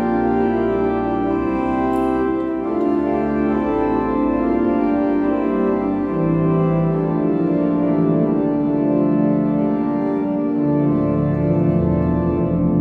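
Church organ playing slow, sustained chords that change every few seconds.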